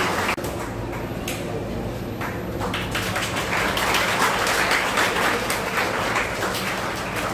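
An audience clapping: scattered claps at first, filling in to steady applause about three seconds in, over a low steady hum.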